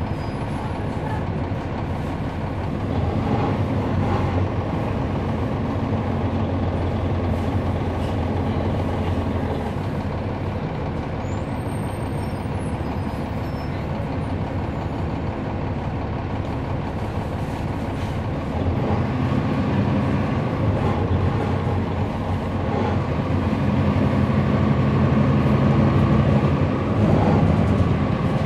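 Interior sound of a 2011 NABI 416.15 transit bus with a Cummins ISL9 diesel engine, running with a steady low drone over road noise. The engine grows louder around four seconds in and again for several seconds about two-thirds of the way through. There is little whine from its ZF Ecolife automatic transmission.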